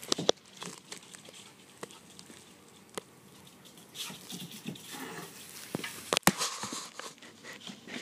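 Irregular scuffling and clicking taps on a tile floor, with sharp knocks about a third of a second in and again just after six seconds.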